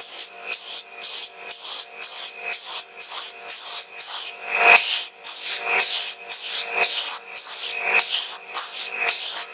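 Quick, even back-and-forth rubbing strokes on a metal pistol part, about two and a half a second, during the bluing stage of the restoration.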